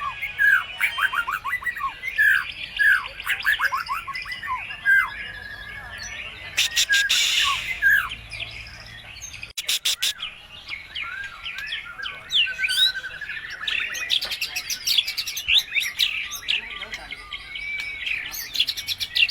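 White-rumped shama (murai batu) singing a fast, varied song of whistles and chirps with a harsh rasping burst about seven seconds in, its song loaded with imitations of other birds' calls.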